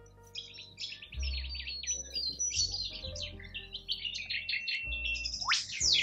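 Many small birds chirping and twittering in quick runs of notes, with one fast rising whistle about five and a half seconds in, over background music of held chords.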